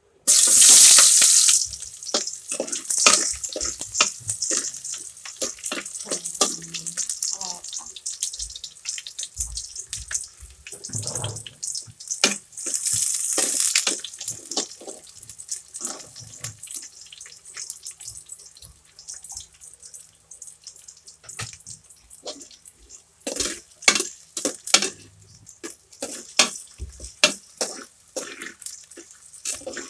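Kitchen cooking sounds: a loud hiss that starts suddenly and fades over about two seconds, another spell of hiss about twelve seconds in, and many clinks and knocks of utensils and cookware throughout, busier near the end.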